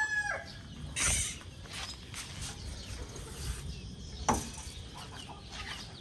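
Backyard chickens: a rooster's crow trails off at the very start, then a few short clucks and rustles from the flock.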